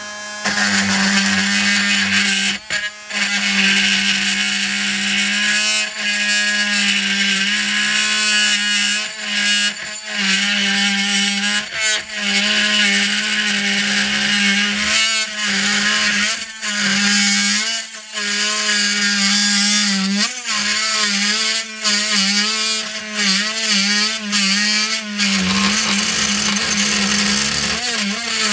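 Oscillating multi-tool (flooring undercut saw) cutting through the heater core and its plastic housing under the dash. It runs as a steady buzzing whine whose pitch wavers and sags under load, stopping and starting several times.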